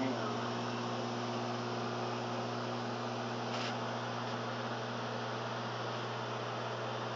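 LG microwave oven running: a steady electrical hum with an even hiss of fan air, and a faint tick about three and a half seconds in.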